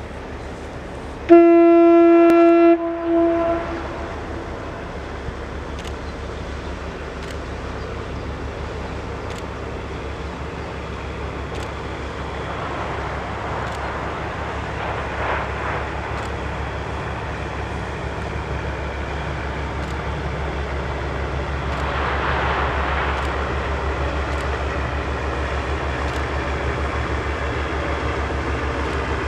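Pushing tug Kopisty sounds its ship's horn: one loud steady blast of about a second and a half, about a second in, with a short fainter repeat. Then the tug's diesel engines run with a low, even throbbing drone that slowly grows louder.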